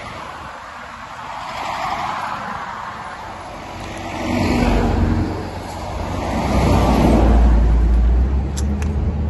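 Road traffic passing on a highway: vehicles go by in swells of tyre and engine noise, the loudest near the end with a deep rumble.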